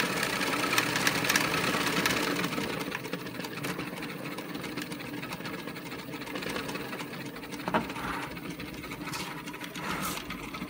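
Small electric drive motor of a 3D-printed R2-D2 foot running steadily, turning the wheel through a toothed belt that is not yet tensioned. Two light knocks of handled plastic parts near the end.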